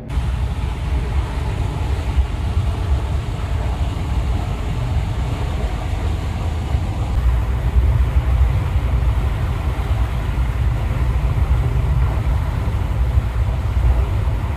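Steady low rumble of a river cruise ship under way, the drone of its engines mixed with rushing wind on the microphone.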